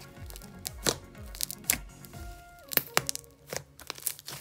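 Background music, with a string of sharp clicks and pops from a pink slime as it is squeezed, poked and stretched by hand.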